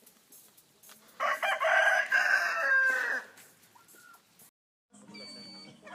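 A rooster crowing once, a loud call of about two seconds beginning a second in.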